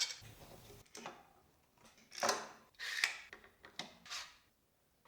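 Clamps being fitted and tightened on a glued-up panel of boards: a handful of short clicks and brief scraping rattles, the longest a little over two and three seconds in.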